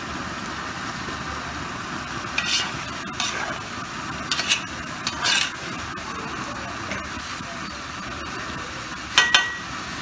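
Chicken curry bubbling steadily in a pot, while a spoon stirs and scrapes against the pot a few times between about two and five seconds in. Two louder knocks near the end leave a short ring.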